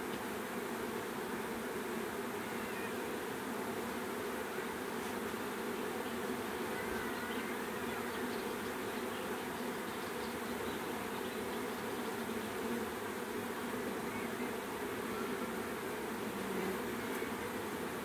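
A swarm of honeybees buzzing steadily around a hive box: a dense, even hum of many bees in flight.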